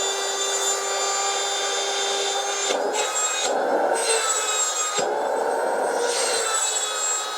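Electrolux ErgoEasy vacuum cleaner's 1300 W motor and turbine fan running with a steady high whine over rushing air, which shifts a little a couple of times midway. It is test-running after debris from a broken turbine blade was cleared, and it sounds much better and quieter, though the damaged turbine leaves the motor doomed.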